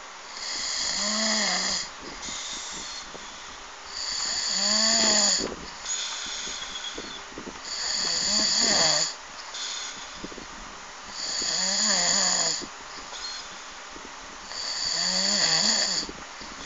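A man snoring in his sleep: five loud snores, each about a second and a half long, coming about every three and a half seconds, with quieter breathing between them.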